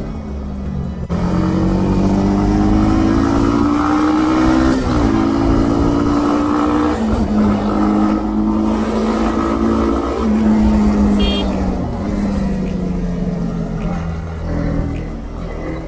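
Honda CB300R's single-cylinder engine pulling hard on the move: its pitch climbs, drops sharply at upshifts about five and seven seconds in, holds, then falls away as the throttle is eased and picks up again near the end.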